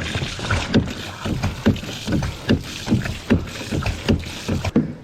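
Quick rhythmic strokes with water sloshing and splashing in and around a kayak that has taken on water, about two to three strokes a second, stopping near the end.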